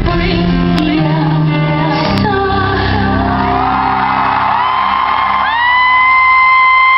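A live band's song dies away in the first couple of seconds. Concert audience members then whoop, with several long, high, held screams starting one after another. The loudest and longest comes near the end and drops sharply in pitch as it stops.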